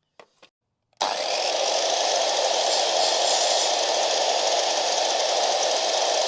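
Erbauer sliding mitre saw switched on about a second in, after a few light clicks, its motor and blade then running at a loud, steady pitch for a cut through a length of cornice.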